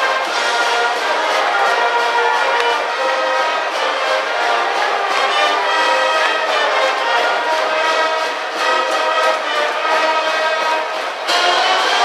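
Brass band music with trumpets and trombones playing sustained notes; the band swells louder a little after eleven seconds in.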